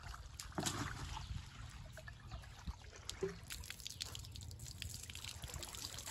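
Water poured from a mug out of a bucket, splashing about half a second in and then trickling and dripping onto the tiles, as a person washes with bucket and mug.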